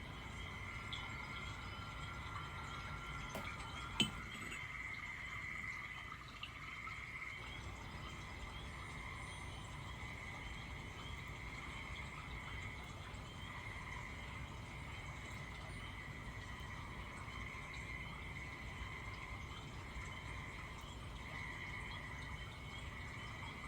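Steady chorus of calling frogs and insects: a shrill, pulsing trill that goes on without a break. A single sharp click about four seconds in.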